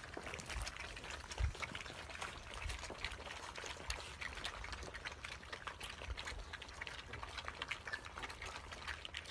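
A litter of puppies eating together from one bowl: a dense, irregular run of small clicks and smacking from many mouths at once, with a few soft knocks.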